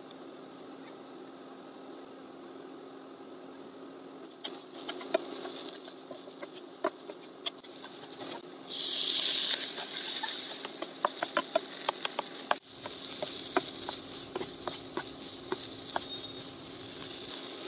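A wooden spatula stirring and tapping against a nonstick frying pan as a spiced scramble cooks, with many short knocks and scrapes over a steady low hum. A loud hiss lasts about a second around nine seconds in.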